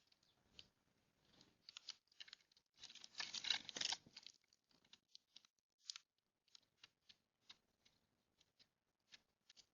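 Birds at a feeder pecking and cracking seed: scattered soft taps and crackles, with a longer, louder bout of rustling and crunching about three seconds in.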